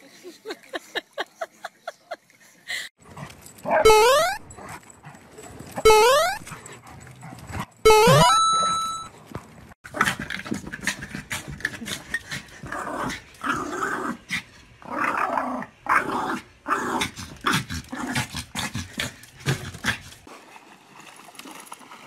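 Dogs yipping, barking and growling. There are quick short yips at first, then three loud drawn-out cries that rise in pitch about two seconds apart, then a long run of rough growls and barks.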